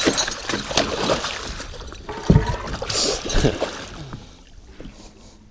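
Water splashing and sloshing at the side of a fishing boat around a landing net holding a freshly caught muskie, with knocks on the hull and one loud thump about two seconds in; the splashing dies down near the end.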